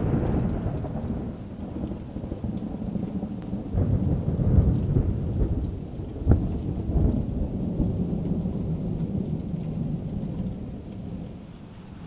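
Thunder rumbling through steady rain, with a sharp crack of thunder about six seconds in; the rumble swells and then dies away near the end.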